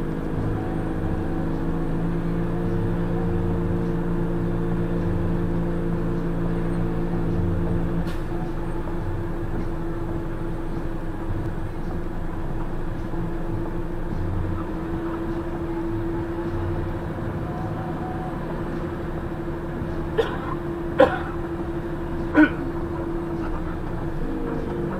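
Vehicle engine running steadily while creeping through slow traffic, heard from inside the cab; its hum changes with a click about a third of the way in. Three short, sharp chirps come near the end.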